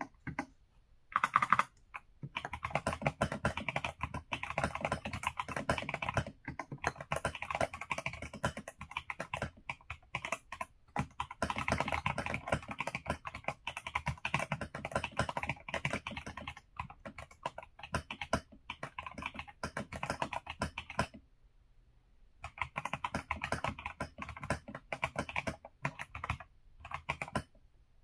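Fast, continuous typing on an EPOMAKER Shadow-X gasket-mounted mechanical keyboard: rapid clacking keystrokes, with a pause of about a second and a half roughly three quarters of the way through.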